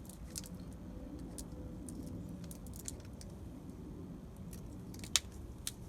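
Cutters snipping through the connections between lithium-polymer battery cells, with small scattered clicks of the tool and the pack being handled and one sharper snip about five seconds in.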